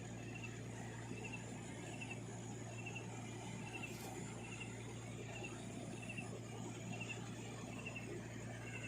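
Night forest ambience: a short, high chirp repeats evenly, about three every two seconds, over a steady low hum and a faint hiss.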